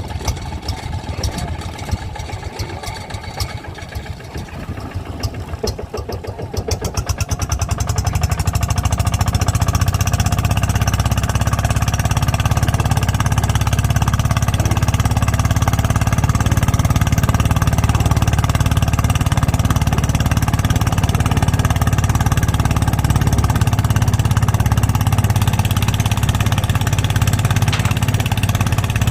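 Small boat's engine running slowly with a quick, even pulse, then opening up about seven seconds in and running loud and steady under way.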